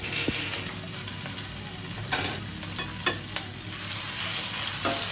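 Chopped garlic and ginger sizzling in hot oil in a nonstick wok while being stirred with a silicone spatula, with a few short scrapes and taps against the pan, the loudest about two seconds in.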